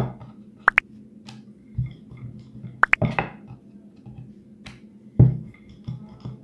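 Rolling pin working a thin dumpling wrapper on a floured pastry board: dull thumps every second or two as the pin comes down and rolls, with a few short sharp clicks in pairs.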